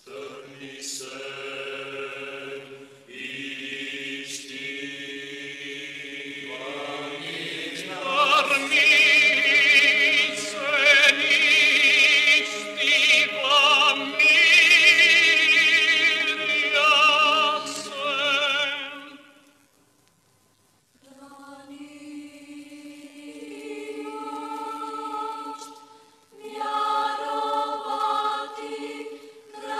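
Choir singing a slow sacred chant in long held notes over a steady low drone, loudest in the middle. The voices stop for about a second and a half about two-thirds of the way through, then start again more softly.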